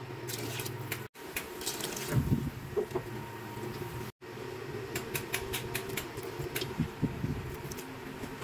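Steady low kitchen hum under a pot of noodle soup cooking, with scattered light clicks and taps. The sound drops out briefly twice.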